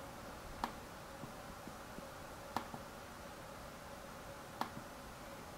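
Three faint, sharp computer mouse clicks about two seconds apart, over a faint steady hum.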